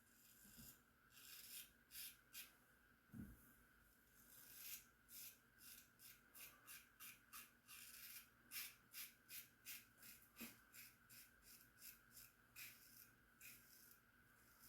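Faint, quick scraping strokes of a 1901 Gem Junior safety razor's blade cutting a couple of days' stubble through shaving lather, about two strokes a second.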